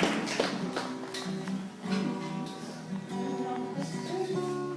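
Acoustic guitar music with plucked notes ringing one after another.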